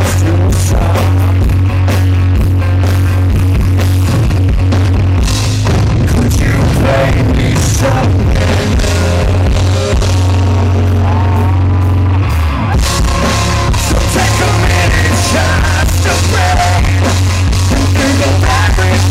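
Live rock band playing, a male lead vocal singing over electric guitar, recorded from the crowd with heavy distortion.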